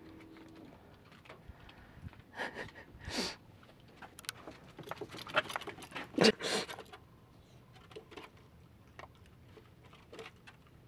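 A dog moving about on composite deck stairs while hunting for kibble: scattered light clicks of claws and jingling collar tags, with short sniffing bursts, the loudest about six seconds in.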